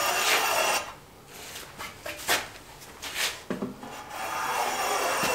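Small hand plane cutting a 45-degree chamfer along the inside edge of a wooden picture-frame piece, each pass a hissing shaving stroke. One long stroke ends about a second in, a few short scrapes follow, and another long stroke starts past the four-second mark.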